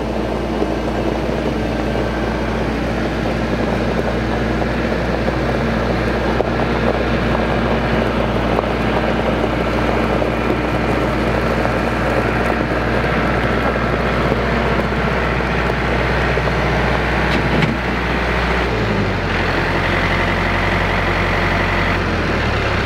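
RK 55 compact tractor's turbo diesel engine running steadily as the tractor drives over a gravel driveway pulling a land plane. About three-quarters of the way through, the engine note drops as the tractor slows and comes to a stop.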